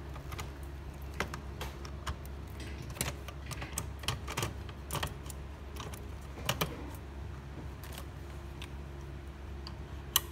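Irregular plastic clicks and taps from hands handling a FANUC 0i-C control unit: a memory card pushed into the circuit board and the yellow plastic cover fitted back over it. A steady low hum runs underneath.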